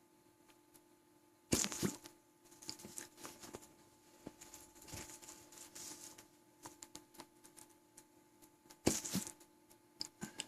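Two sharp hiccups, one about a second and a half in and another near the end, with faint clicks and rustling between them.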